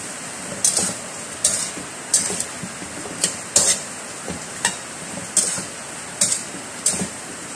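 Metal slotted spatula scraping and knocking against a wok about once a second, stirring chicken pieces in soy-sauce gravy, over a steady hiss.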